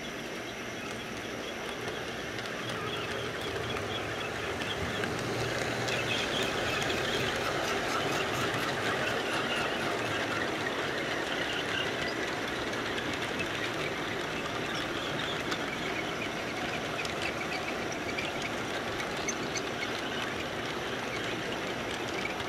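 HO scale model train running past close by: a steady whir of the motor and wheels on the track, with light, irregular clicks. It grows louder over the first few seconds and then holds steady.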